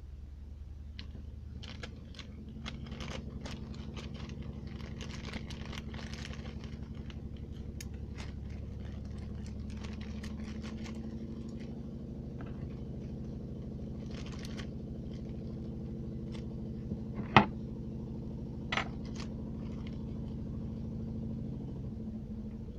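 Scattered clicks and light rattles of small hard parts being handled, over a steady mechanical hum, with one sharp, loud click about two-thirds of the way through.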